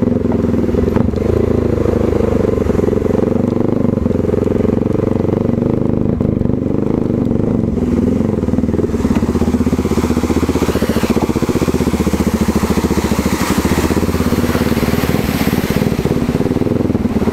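Motorcycle engine running at low, steady revs as the bike crawls over a rough gravel track. From about halfway in, a hiss of water and stones joins it as the bike rides through a shallow stream crossing.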